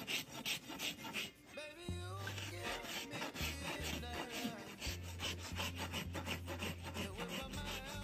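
Farrier's hoof rasp scraping back and forth across a horse's hoof, a long run of repeated rough strokes.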